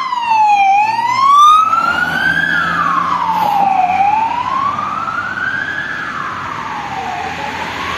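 Police siren on an emergency run, a slow wail rising and falling about every three and a half seconds. A second, faster-sweeping siren overlaps it in the first second or so. The wail slowly fades as the vehicles drive away.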